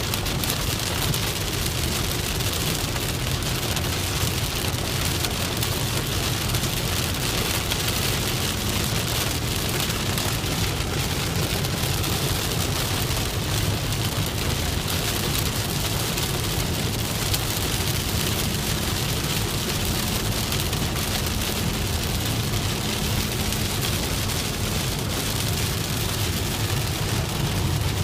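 Steady rain falling on a moving car, with the car's low, even rumble on the road underneath.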